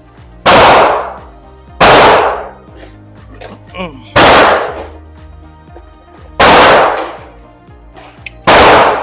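Five loud gunshots, evenly spaced about two seconds apart, each followed by a short ringing tail.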